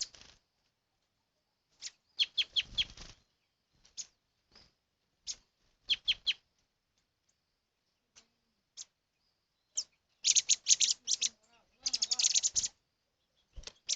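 Wild native birds chirping in bursts of quick, sharp high notes with pauses between them, busiest in the second half.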